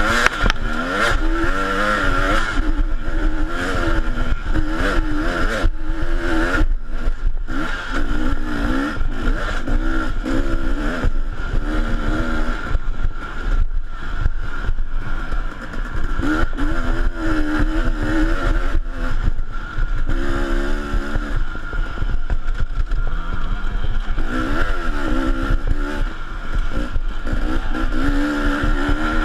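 KTM dirt bike engine revving up and down again and again as the throttle is worked on a rough trail, picked up close by a camera on the bike, with knocks and rattles from the bumps.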